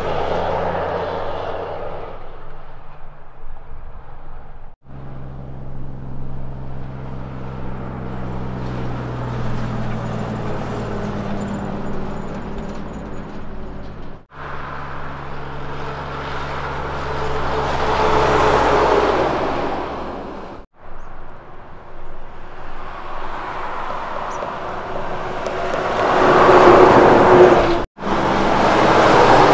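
Heavy diesel road-train trucks hauling livestock trailers drive by. A low, steady engine drone is joined by tyre and road noise that swells loudly twice as trucks pass. The sound breaks off abruptly several times between clips.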